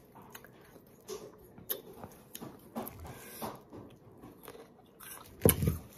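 Mouth sounds of biting and chewing a crisp green Marian plum (plum mango) coated in chili salt: scattered small crunchy clicks, with a louder bite-like sound near the end.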